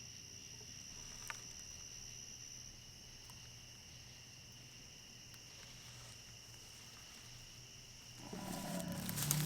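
Faint, steady high-pitched insect trill, with a single sharp click about a second in. Near the end a louder rough noise builds up over it.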